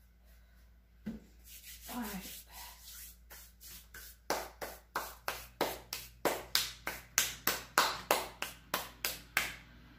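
Hands rubbing together in quick, even strokes, about three to four a second, brushing off flour and dough. The strokes grow louder about four seconds in.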